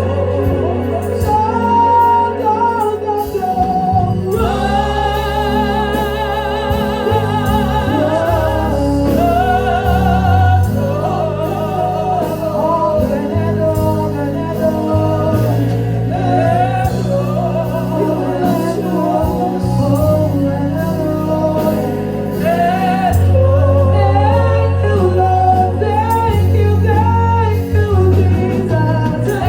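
Gospel worship music: singing with a held, wavering melody over a steady bass line.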